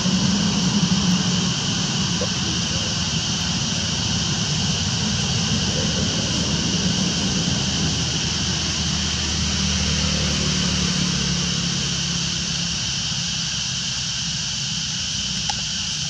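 A steady, continuous engine drone: a low hum with an even high buzz above it, with no distinct events.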